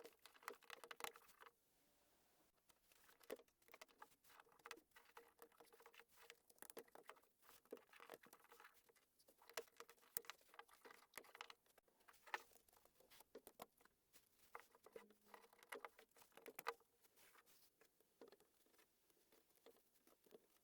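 Plastic LEGO pieces clicking, snapping together and rattling as they are handled, a faint run of quick, irregular sharp clicks.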